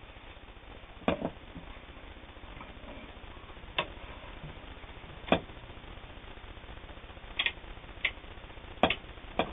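Scattered sharp clicks and knocks, about seven of them at irregular intervals, from setting up the sewing machine and fabric before sewing.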